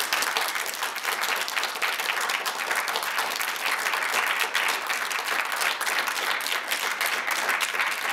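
Audience applauding: many hands clapping together, dense and steady.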